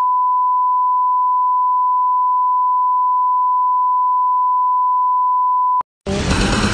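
Steady 1 kHz bars-and-tone reference tone, a single unchanging pitch that cuts off suddenly a little before the end. After a brief silence, loud music starts near the end.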